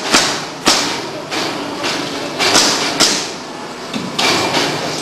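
Wooden planks knocking and thudding as a slatted wooden packing crate is assembled, five irregular sharp knocks over steady workshop noise.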